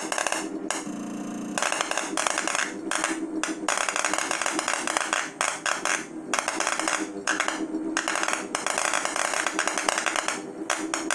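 Spark erosion under water: a copper electrode arcing against an aluminium workpiece in a home-built CNC EDM, giving a dense, irregular crackle that breaks off briefly several times, over a steady hum.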